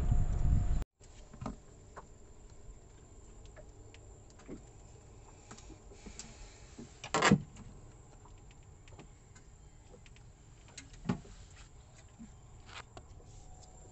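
A loud low rumble that cuts off abruptly about a second in, then faint handling sounds in a small boat: scattered light clicks and knocks, with a louder knock about seven seconds in and another about eleven seconds in.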